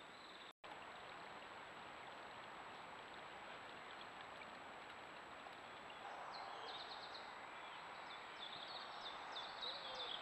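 Steady faint hiss with a thin high electronic whine from a trail camera's microphone. From about six seconds in, small birds sing in quick short high notes that grow louder toward the end.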